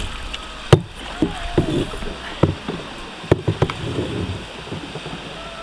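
Canoe paddles dipping and splashing in river water, with water lapping at the hull. Two sharp knocks, about a second in and again past the three-second mark, are the loudest sounds.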